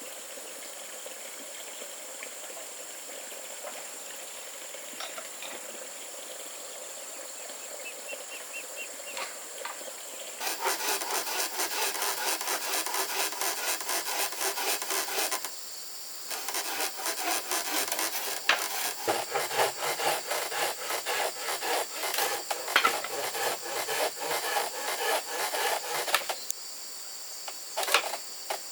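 Rapid, rhythmic rasping strokes of a hand tool working wood, starting about a third of the way in and broken by two short pauses.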